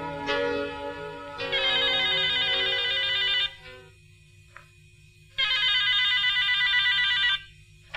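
Telephone ringing with a warbling trill, ring after ring of about two seconds each with pauses of about two seconds between them. Background music under the first ring fades out in the first second or two.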